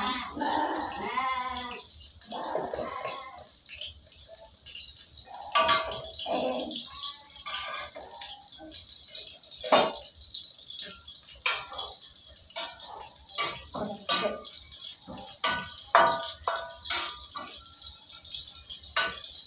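Hot oil sizzling steadily in a wok as food fries, with a metal spatula clinking and scraping against the pan every few seconds as it is stirred.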